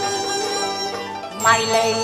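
Traditional Chinese instrumental accompaniment of a Cantonese opera song: sustained melody lines over plucked strings, with a sharper plucked attack about one and a half seconds in.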